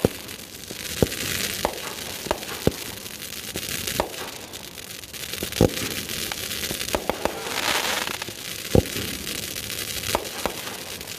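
Fireworks going off: scattered sharp bangs, the loudest about halfway and three-quarters of the way through, with stretches of crackling between them.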